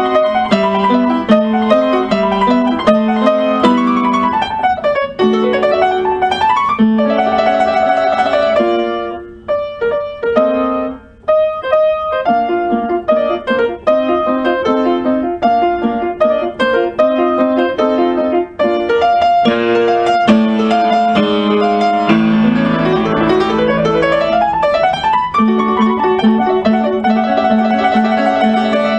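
Background piano music, many notes at once, with quick rising and falling runs; it thins out briefly about nine to eleven seconds in.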